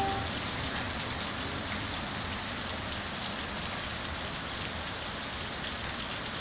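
Heavy rain falling steadily on wet paving and asphalt, an even, unbroken hiss of rain.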